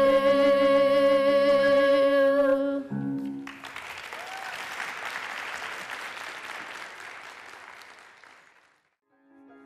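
A girl's voice holds the last sung note of the song with vibrato over a soft accompaniment, stopping about three seconds in. An audience then applauds, and the applause fades out near the end.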